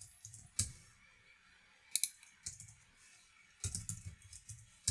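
Typing on a computer keyboard in short runs of keystrokes with pauses between, a few keys at a time and a longer run near the end.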